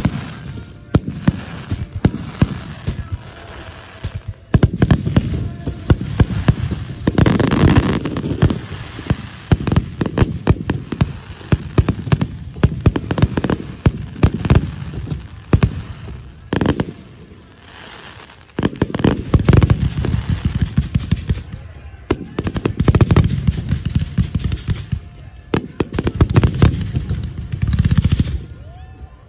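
Fireworks display: aerial shells bursting overhead in rapid, overlapping volleys of booms and crackles, easing off briefly a little past halfway before building again.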